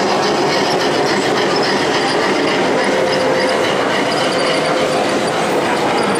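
A G-scale model steam tank locomotive hauling wagons and coaches along the layout's track, running steadily against the constant hubbub of a crowded exhibition hall.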